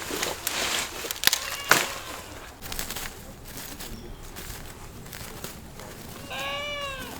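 A goat bleats once near the end: a single call of under a second whose pitch rises and then falls. Before it come a few sharp knocks and some rustling in the first two seconds.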